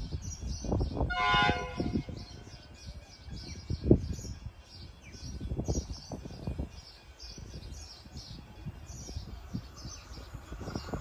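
V/Line Sprinter diesel railcar sounding one short horn blast about a second in as it approaches. Birds chirp steadily throughout, over uneven low rumbling bumps, the loudest of them about four seconds in.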